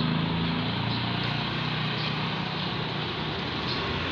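Small motorcycle engine running at a steady speed while riding, with wind and road noise.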